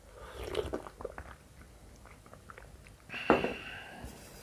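Gulping sips of a drink from a drinking glass, with small mouth clicks, then a sharp clink a little past three seconds in as the glass is set down, ringing briefly.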